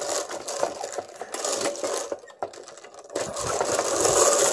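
Plastic bingo balls rattling and clattering inside a hand-cranked toy bingo cage as it is turned. The rattle is continuous, eases a little around the middle and grows louder again near the end.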